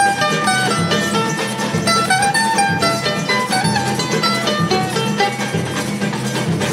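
Choro played by a small group: a bandolim (Brazilian mandolin) leads with a quick melody of short picked single notes over strummed guitar accompaniment.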